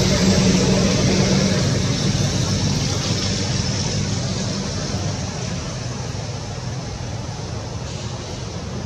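Low steady hum of a motor vehicle engine over steady outdoor noise, fading gradually and dying away about halfway through.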